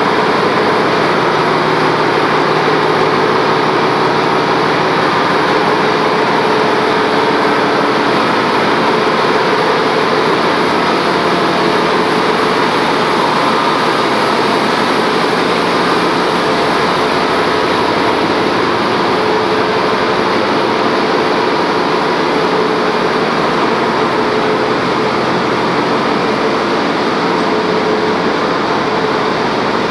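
Loud, steady din of a bulk carrier's engine room, with machinery running continuously: a dense rush of noise with a steady hum in it.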